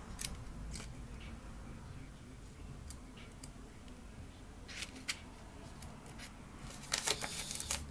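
Pages of a small paperback tarot guidebook being leafed through by hand: a few light paper rustles and sharp little clicks at irregular moments, several together near the end.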